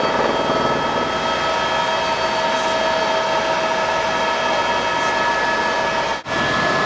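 Eurocopter helicopter's turbine and rotor noise heard from inside the cabin: a steady rushing drone with several constant whining tones. It cuts out for an instant about six seconds in.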